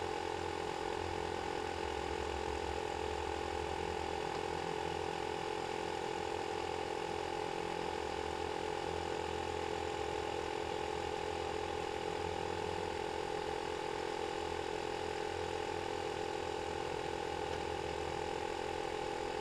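Air compressor running steadily to recharge its tank after the air gun drained it: a constant mechanical hum with a rattling, pulsing low end.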